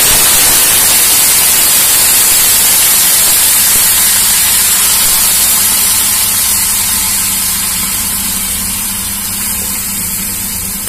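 Raw mutton pieces sizzling in hot oil in an aluminium pressure cooker: a loud, steady hiss of spattering oil and steam that slowly dies down.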